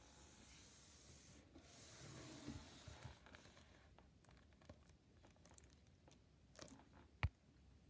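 Near silence with faint handling sounds from a shrink-wrapped plastic DVD case being picked up and held: a soft rustle of the wrap, scattered small clicks, and one sharper click near the end.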